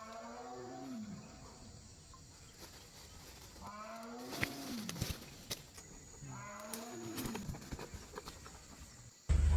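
An animal's drawn-out call, heard three times a few seconds apart, each call rising and then falling in pitch. Near the end a much louder sound cuts in abruptly.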